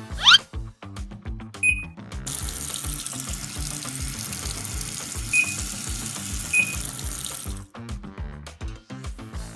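Water jetting out of a Lego Technic fire truck's sprinkler hose, a steady hiss of spray that starts about two seconds in and stops suddenly about two seconds before the end. A few short high beeps sound during it, over background music with a steady beat.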